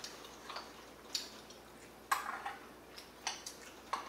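Metal chopsticks and spoon clinking and scraping against a ceramic rice bowl while eating, about six short clinks, the loudest about two seconds in with a brief ring.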